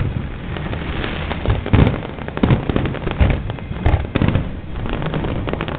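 Aerial fireworks bursting one after another: a dense run of booms over continuous crackling, with heavier bangs about every half second to a second.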